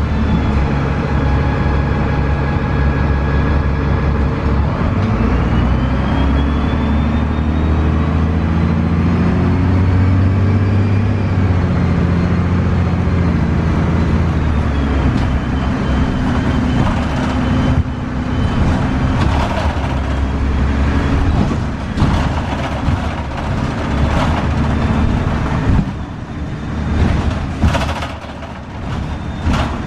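Cummins ISC diesel engine and Voith automatic transmission of a 2002 Gillig Advantage transit bus, heard from inside while the bus is under way. The engine note climbs steadily through the first dozen seconds as the bus picks up speed. In the second half, sharp knocks and rattles come through, with a brief drop in loudness near the end.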